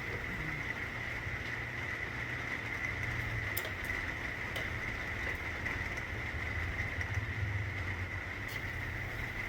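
Steady rain falling, an even hiss over a low steady rumble, with a few faint ticks of drops.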